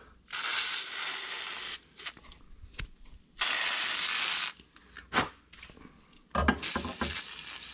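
Aerosol can of Nu-Calgon Evap Foam coil cleaner spraying onto an ATV radiator in two hissing bursts of about a second and a half each, the second louder. Short clicks and knocks come between the bursts, and crackly handling noise follows near the end.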